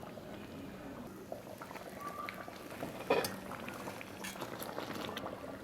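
Thick mushroom gravy simmering in a pot, bubbling with a light crackle of small pops as it thickens near the end of cooking. There is one louder click about three seconds in.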